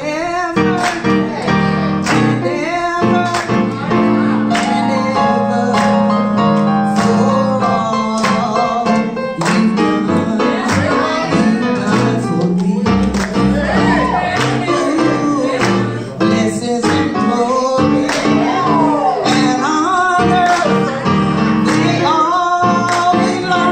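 Gospel singing with instrumental backing: voices glide and bend through a melody over a steady beat.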